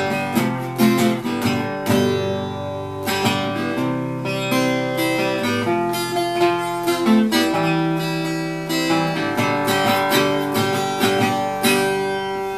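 Acoustic guitar strummed in a steady rhythm, an instrumental break in a country song with no singing.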